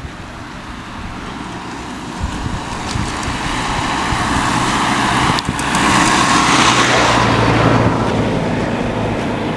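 A motor vehicle approaching along the road and passing close by. Its engine and tyre noise build steadily, are loudest about six to seven seconds in, then ease off a little.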